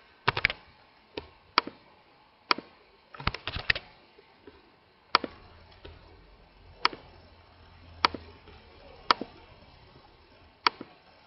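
Computer mouse and keyboard clicks: sharp single clicks about once a second, with a quick run of several clicks about three seconds in.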